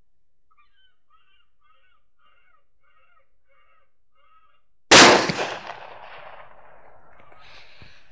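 ICOtec Furnado electronic caller playing a chicken-in-distress call, a short squawk repeated about three times a second. About five seconds in, a single loud shot from a Tikka T3X .223 rifle, its echo dying away over about a second.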